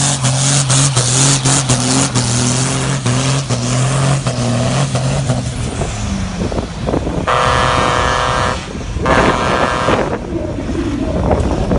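A 5.9-litre Cummins 6BTA turbo-diesel with a BorgWarner S366SX-E turbo runs flat out under full load as it pulls a sled, holding a steady pitch, then drops away about six seconds in. After that come two horn blasts, each lasting about a second.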